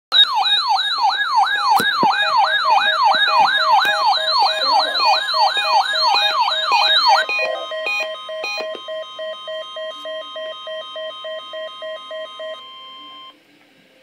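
NOAA weather alert radio going off for the weekly test of the public warning system. First a fast warbling siren sweeps up and down about twice a second. About seven seconds in it gives way to a steady warning alarm tone with rapid beeps over it, about four a second, and the tone cuts off suddenly near the end.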